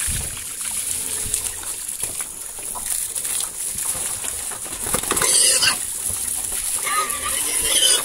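Whey pouring from a hose and splashing over a crowd of pigs at a feed trough, with the pigs feeding and grunting. A brighter, sharper sound rises briefly about five seconds in.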